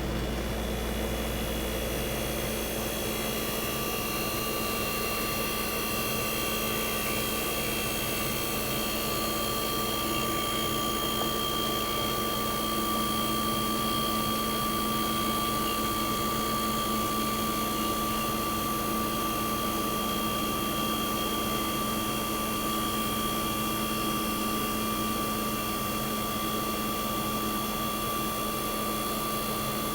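A 1965 Fedders Weather Wheel 12,000 BTU window air conditioner running steadily just after its first startup of the season: the Tecumseh AJ reciprocating compressor humming and the fan blowing. A steady high whine joins in about three seconds in.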